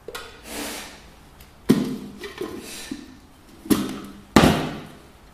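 Plastic blender lid being pushed and knocked onto a glass blender jar: a series of sharp knocks and clatters, three of them louder, as it is worked into place.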